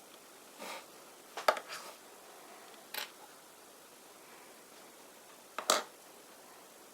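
A handful of short clicks and crinkles from hands handling small objects. The loudest come about a second and a half in and again near six seconds in.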